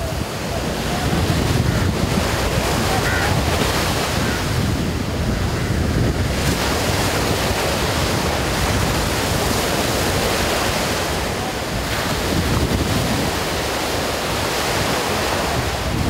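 Surf on a choppy sea: waves washing and breaking in a steady rush, with wind buffeting the microphone.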